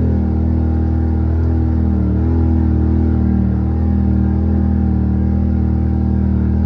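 Side-by-side UTV engine running at a steady speed, its pitch dipping briefly about two seconds in.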